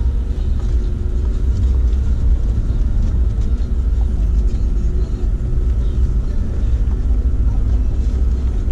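Vehicle driving slowly over a rocky dirt road, heard from inside the cab: a steady low engine and road rumble with a few light knocks.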